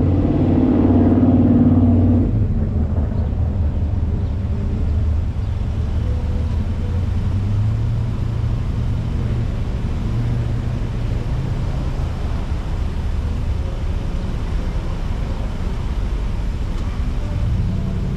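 Motorcycle engine running on the road, louder for about the first two seconds, then settling into a steady low drone.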